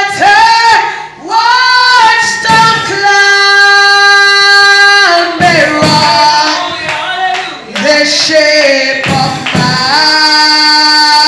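A woman singing a slow gospel worship song into a microphone, with long held notes that slide between pitches.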